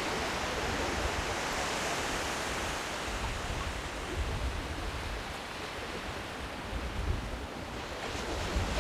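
Steady wash of sea surf on a beach, with irregular low wind rumble on the microphone.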